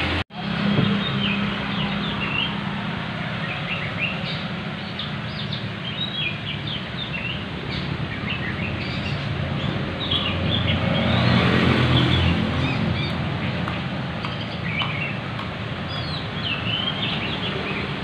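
Many small birds chirping in quick, scattered calls over a steady background rumble of traffic-like noise.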